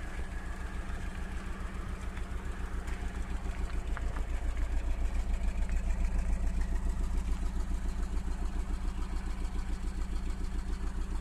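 Alfa Romeo 156 2.0 Twin Spark four-cylinder engine idling on LPG, with a steady, even exhaust pulse at the tailpipe. It gets louder about halfway through.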